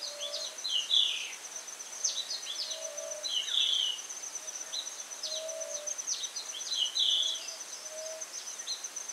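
Natural ambience of insects and birds: an insect keeps up a steady, fast-pulsed high trill while a bird gives clusters of short chirps every few seconds, mixed with faint lower notes.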